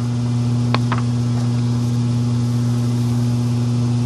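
A steady low electrical hum, like mains hum in the recording, with two faint clicks just under a second in.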